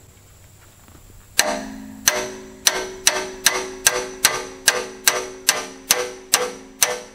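A steel wrench on a seized hydraulic hose fitting is struck again and again with a hammer to break the fitting loose: about thirteen blows, two to three a second, starting about a second and a half in. Each blow rings with the same clear metallic tone.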